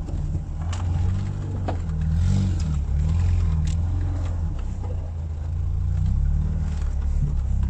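Lada Niva's engine running under load while the 4x4 crawls off-road, its note rising and falling with the throttle, heard from inside the cab. A few sharp clicks and knocks come in the first two seconds.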